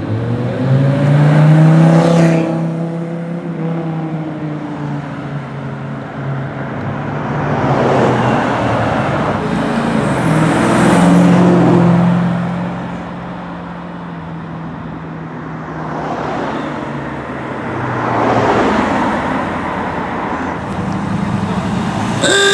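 Performance cars' exhausts as the cars accelerate away one after another. The engine note rises to a loud peak about two seconds in, then falls away as the car passes. Another car is loudest around eleven seconds in, and a third surges shortly before the end.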